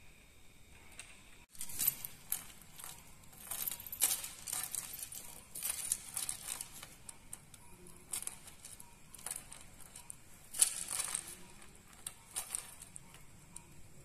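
Light metal leg chain on a yellow-crested cockatoo clinking and jangling in a run of short jingles as the bird shifts its feet on a wooden chair back, the loudest cluster about ten and a half seconds in.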